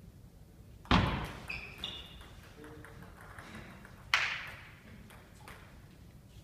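Table tennis rally in a sports hall: a loud, sharp hit about a second in, with echo, then small clicks of the ball and brief squeaks of shoes on the hall floor. A second loud smack with echo comes about four seconds in.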